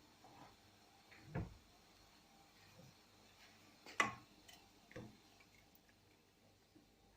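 Faint, scattered knocks and clicks: a soft thud just over a second in, a sharp click about four seconds in, the loudest, and a lighter knock a second later.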